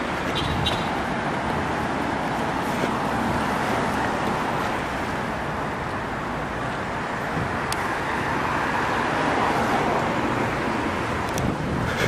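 Steady city street traffic: cars driving past on a busy road, the noise swelling to its loudest about nine to ten seconds in.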